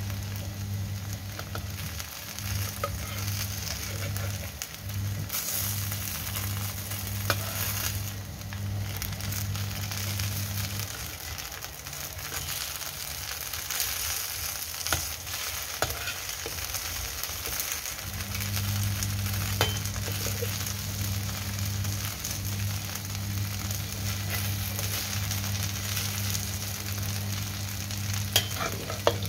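Slices of Chinese New Year cake sizzling as they pan-fry in oil in a wok, with occasional sharp clicks and scrapes of a metal spatula turning them. A low steady hum runs underneath, dropping out between about 11 and 18 seconds in.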